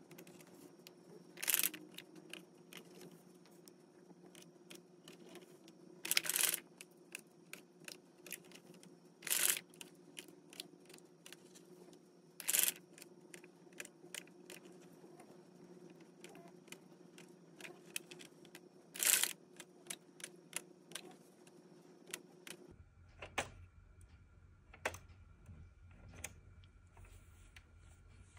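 Light, irregular clicking and tapping of a small needle and yarn against the plastic pegs of an Addi King knitting machine as stitches are lifted off the loom one by one, with a handful of sharper, louder clicks among them.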